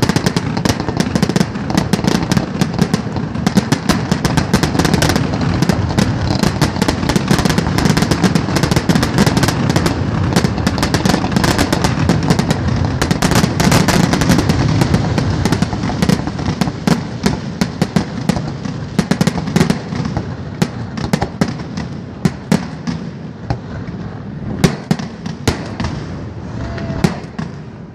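Fireworks display at close range: a dense, continuous barrage of shell bursts and crackling with many sharp bangs over a deep rumble, thinning out somewhat over the last several seconds.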